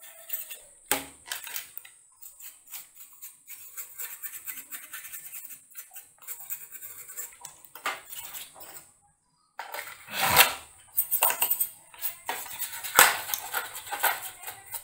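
Small brush scrubbing dust off a computer motherboard: quick scratchy brushing strokes and clicks. In the second half come a few louder knocks and rattles as the board is handled.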